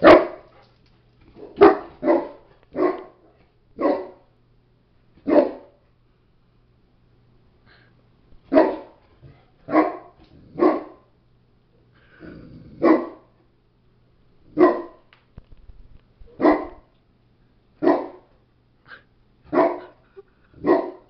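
A large dog barking in single deep alarm barks, about fifteen of them, spaced a second or two apart with a short pause partway through. It is barking at a Halloween skeleton outside the glass door as if it were an intruder.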